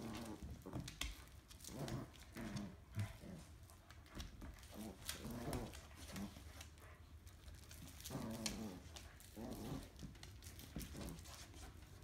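Short bursts of playful dog growling, repeated every second or two, as an American Eskimo puppy and a Finnish Spitz tug on a plush toy. Claws click and scuffle on a vinyl floor.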